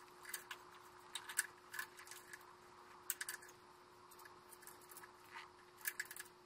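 Small, irregular clicks and light rattles of electrical wires and connectors being handled and fed into place behind a tractor's dash panel, coming in short clusters.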